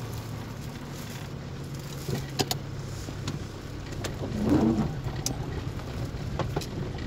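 Car running on a wet road, heard from inside the cabin: a steady low engine and road hum with a few sharp clicks scattered through it.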